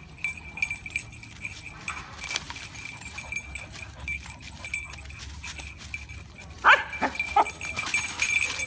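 Dog play-fighting with another dog, giving three short, high cries in quick succession about two-thirds of the way in, each falling sharply in pitch.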